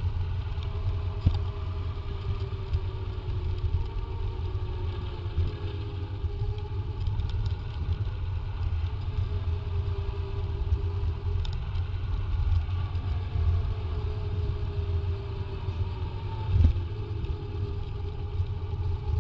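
Wind buffeting the microphone of a bicycle-mounted camera on a fast road descent: a steady low rumble with a faint wavering hum above it. Two short knocks, about a second in and near the end, as the bike hits bumps.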